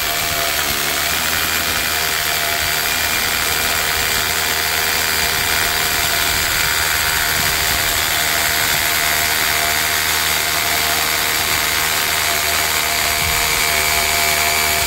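Worx cordless mini rotary hammer drilling a 12 mm hole into concrete, running steadily under load, and boring through without trouble.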